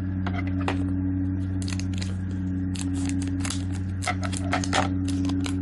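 Foil wrapper of a Pokémon card booster pack crinkling and crackling as it is handled and torn open, a rapid run of sharp crackles from about a second and a half in, over a steady low hum.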